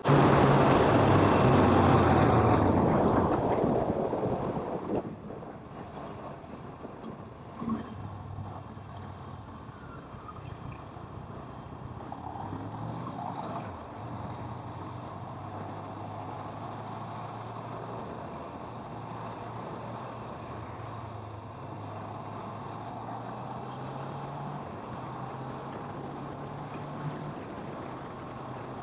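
Kawasaki motorcycle engine running while riding in traffic, its note rising and falling with the throttle. A loud rushing noise fills the first few seconds and dies away by about five seconds in.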